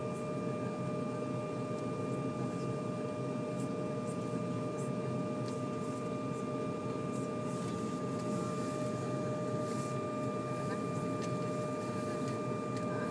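Steady airliner cabin hum with a constant whine, heard from inside the parked plane, and faint scattered ticks through the middle and later part.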